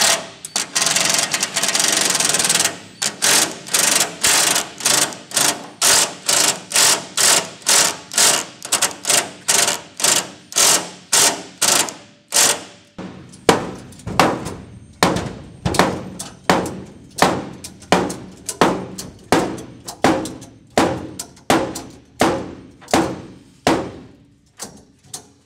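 Cordless impact driver running a screw into the sheet-metal floor pan, followed by a long run of sharp, evenly spaced strikes: about three a second at first, then about two a second, fading near the end.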